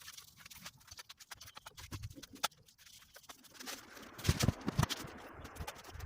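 Irregular knocks, taps and clicks of hand work on a shingled roof around a roof vent, with a few heavier thuds about four seconds in.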